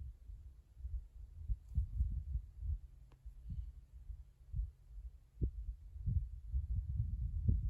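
Low, irregular rumbling with soft thuds, of the kind wind or handling makes on an outdoor microphone; no gunshot.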